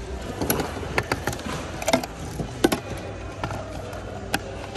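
Hands rummaging through a bin of mixed secondhand goods: irregular knocks and clacks of hard objects bumping together, the sharpest about halfway through.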